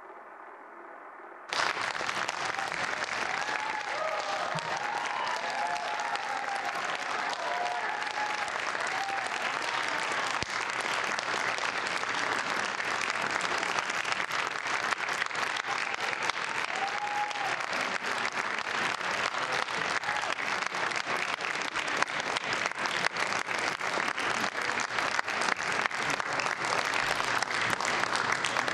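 A large crowd applauding and cheering. It starts abruptly about a second and a half in, and dense clapping keeps on steadily. Voices call out over the clapping for several seconds after it starts, and briefly again later.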